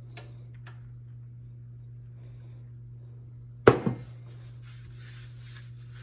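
A single loud clunk a little past halfway, as the cast iron skillet goes into the oven, over a steady low hum; soft rubbing follows toward the end.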